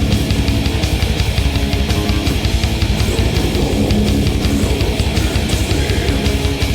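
Black metal band playing: distorted electric guitars over fast, steady drumming, with no vocals heard.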